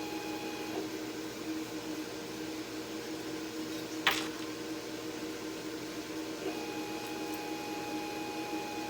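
Cutting machine running with a steady mechanical hum, one of its tones dropping out for a few seconds mid-way and returning, and a single sharp click about four seconds in.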